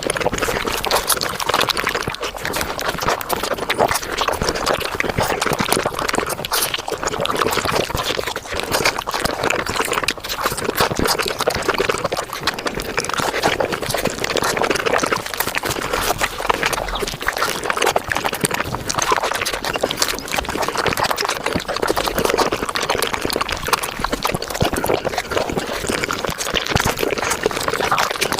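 Wet chewing and mouth sounds from eating Japanese fruit sandwiches, sped up five times into a dense, continuous patter of small squishy clicks.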